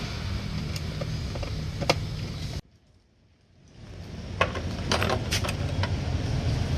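Small metal clicks and clinks over a steady low hum, as parts and tools are handled while a car's interior and audio system are dismantled. The sound cuts off abruptly about two and a half seconds in, leaving about a second of near silence. It then fades back in with more sharp clicks.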